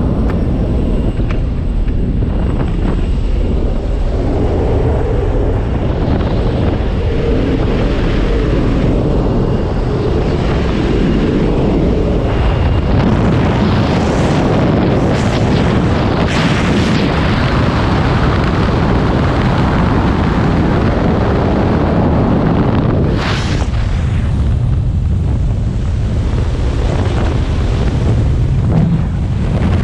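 Jump plane's engine drone filling the cabin, giving way about halfway through, as the jumper climbs out the door, to heavy wind rushing over the helmet camera's microphone in freefall.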